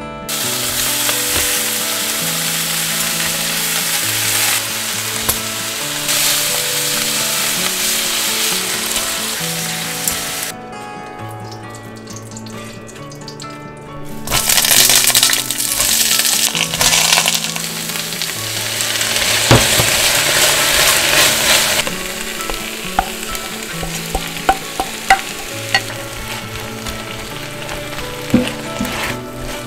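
Cabbage, carrot and onion sizzling as they stir-fry in pork-belly fat in an enamelled cast iron pot, loudest around the middle. Near the end a wooden spatula clicks against the pot as it stirs. Soft music plays underneath.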